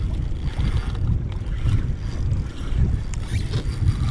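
Wind buffeting the microphone, a loud gusty low rumble.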